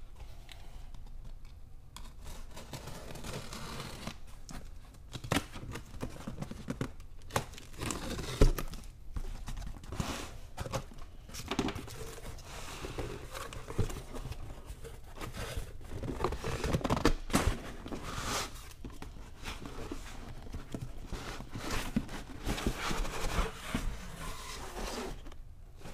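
Unboxing a cardboard shipping box: packing tape slit with a box cutter, cardboard flaps folded open and the boxed product slid out, heard as irregular scraping, rustling and knocks of cardboard, with one sharp knock about eight seconds in.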